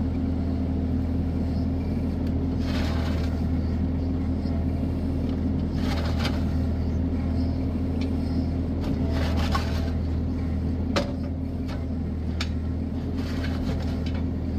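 Bobcat E26 mini excavator's diesel engine running steadily, heard from the operator's seat. About three times, a short scraping rush rises over it as the bucket's teeth and bar drag through dirt and gravel, and a few sharp clicks follow near the end.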